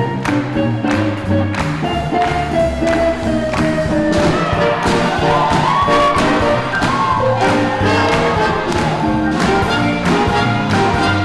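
Live swing band playing: drums keep a steady beat under guitar, bass and horns, with long held horn notes that slide up in pitch.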